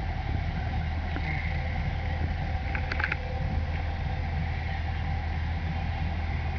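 A steady low mechanical hum, like an engine running, with a few faint clicks about three seconds in.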